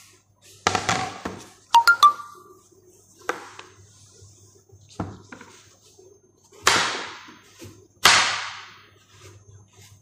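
Kitchen utensils and dishes being handled while vegetables are prepared: a few knocks, a quick ringing clink about two seconds in, and later two longer swishes that each fade over about a second.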